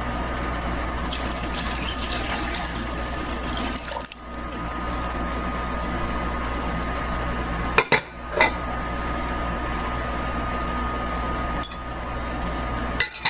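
Steady sound of running water, with a constant low hum and a faint steady whine underneath; a couple of sharp clinks about eight seconds in.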